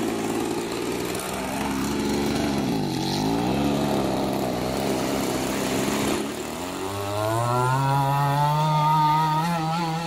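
Small two-stroke petrol engine of an RC gas boat running. Its pitch dips and comes back up about three seconds in. From about seven seconds it revs up sharply and holds a high, steady pitch as the boat runs at speed.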